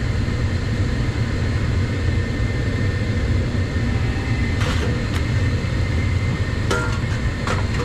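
Steady low hum and rumble of running HVAC machinery, with four light metallic clinks in the second half as a metal drain pan is handled.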